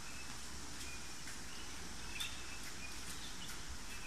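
Outdoor ambience: a steady low background noise with faint, short bird chirps scattered through it.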